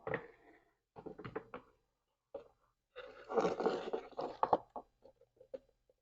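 Hands handling small plastic parts of a refrigerator fan assembly. A knock, a short run of rattles, a longer scraping rustle about three seconds in, then several quick light clicks.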